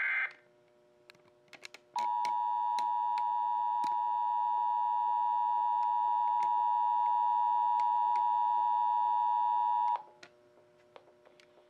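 Emergency Alert System relay: the last moment of a SAME header data burst, then after a short gap the steady EAS attention tone, held for about eight seconds before it cuts off. This signals that an emergency alert is being relayed. Faint clicks are heard throughout.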